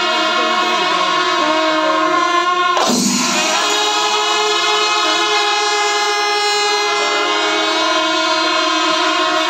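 Kerala temple melam in full swing: chenda drums beaten by a large ensemble under a dense wall of sustained, loud wind tones, the kind of held notes the melam's kuzhal pipes and kombu horns give. The held notes shift about three seconds in and again near seven seconds, with a brief rushing noise at the first change.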